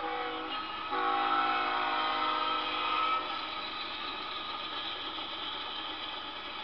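Diesel freight locomotive's air horn sounding a chord: one blast ends about half a second in and a second long blast runs from about a second in to about three seconds. Then the freight train rolls past with a steady rolling noise.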